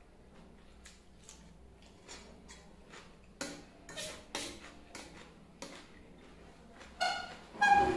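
Eating noises: a string of soft clicks from chewing and from a metal fork working through noodles on a stainless steel plate, with a louder ringing clink of the fork against the plate near the end.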